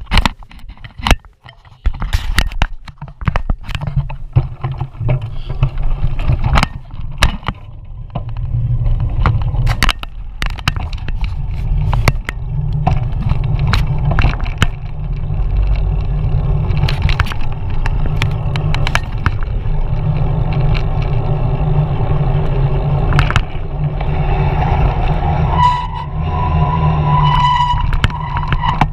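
Wind buffeting and road rumble on an action camera riding an electric mountain bike, broken by frequent sharp knocks and rattles from bumps, most of them in the first dozen seconds. Near the end a steady whine comes in over the rumble.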